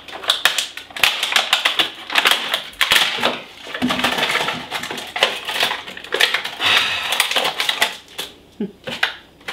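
Thin clear plastic accessory bags crinkling as they are handled and pulled open, a dense crackle that thins out near the end.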